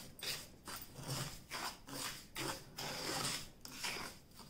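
Wooden spatula scraping and stirring semolina roasting in a nonstick pan, in repeated strokes about two a second, as the semolina is roasted until golden for halwa.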